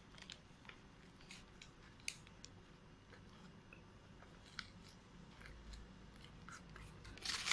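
Faint close-up chewing of a Whopper burger, with scattered soft mouth clicks. A louder burst of noise comes near the end.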